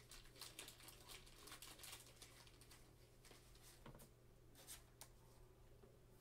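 Faint soft ticks and rustles of trading cards being handled and slid into a plastic card sleeve, over a low steady hum.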